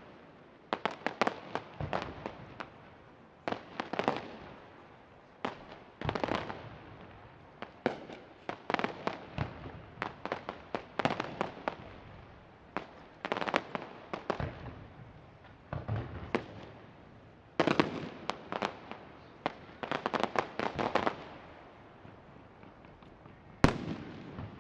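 Fireworks display: salvos of aerial shells bursting in quick clusters of sharp bangs every second or two, with echoing tails. There is a lull near the end, then one loud bang.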